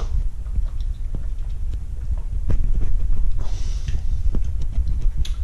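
Camera handling: a low rumble with scattered light knocks and clicks, about one a second, as a small action camera is moved around and set down on a kitchen counter.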